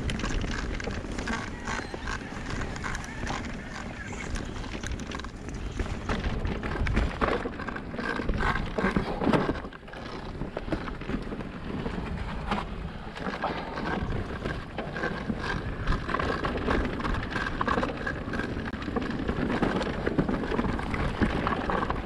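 Orbea Rise electric mountain bike ridden over rough trail: steady tyre and wind noise with a dense run of clicks and knocks as the bike and its loosely clamped mudguard clatter over the bumps.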